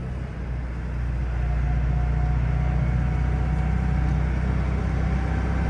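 A small pickup's four-cylinder engine running under way, heard from inside the cab: it eases off briefly at the start, then pulls steadily again. A faint thin whine, slowly rising in pitch, sits above the engine from about a second and a half in.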